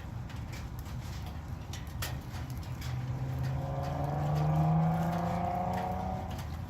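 A motor vehicle passing by: its engine hum swells, rises slightly in pitch, is loudest about five seconds in, then fades. Irregular ticks of raindrops run underneath.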